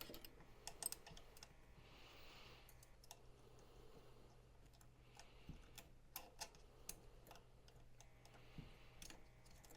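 Faint, irregular small clicks and taps of a hand tool on screws and metal parts while small mounting screws are tightened.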